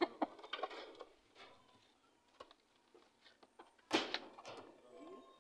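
Plastic jar clattering and knocking as a monkey pulls it off a shelf, with a few scattered knocks and a louder knock about four seconds in.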